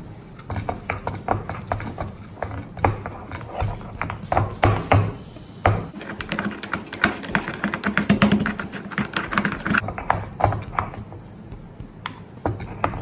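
Stone pestle pounding and grinding fresh mint leaves in a stone mortar: a run of irregular dull knocks and crushing strokes, with background music.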